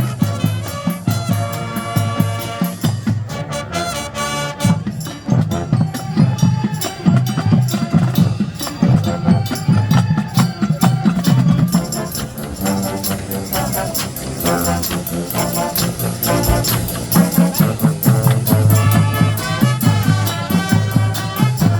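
High school marching band playing a brass and drumline arrangement, horns over a steady drum beat.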